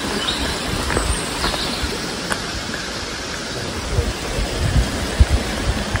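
Walking on a woodland footpath: irregular low thumps of footsteps and a handheld camera being carried, over a steady rushing background, with a few faint bird chirps.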